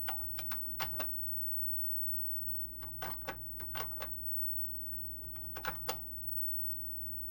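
Keys clacking on a TRS-80 computer keyboard as a date is typed in, in three short bursts of keystrokes with pauses between, over a low steady hum.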